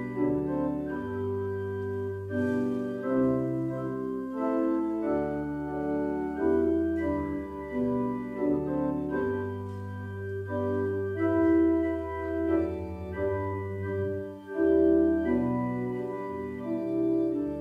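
Organ playing a postlude: sustained chords that change every second or so over a low bass line.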